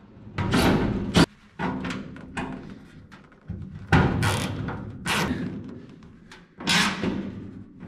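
Power drill driving self-drilling screws through sheet steel in several short bursts of a second or two, with a sharp click about a second in. The screws are drawing the new floorpan edge tight against the transmission tunnel.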